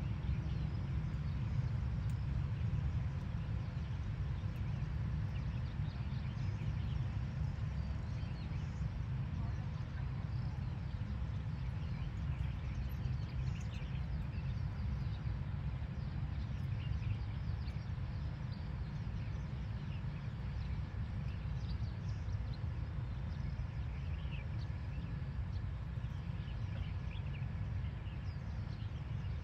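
Outdoor ambience: a steady low rumble, with faint, scattered bird chirps above it.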